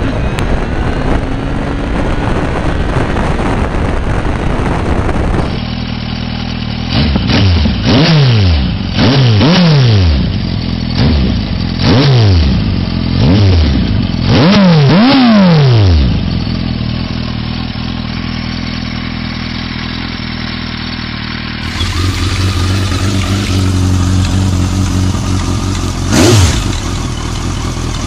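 Suzuki Bandit 1250's inline-four engine, first running hard under way. It is then blipped about eight times through an aftermarket Akrapovič silencer, each rev rising and falling quickly. After that it idles through a Hurric silencer, with one quick blip near the end.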